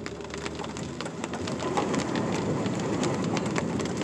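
Van driving through deep standing water on a flooded dirt road: water rushing and splashing under the vehicle over the engine, louder from about two seconds in, with rain ticking on the windshield.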